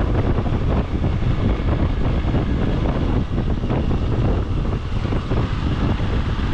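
Motorcycle riding along at steady speed, its engine rumble mixed with wind buffeting the action camera's microphone.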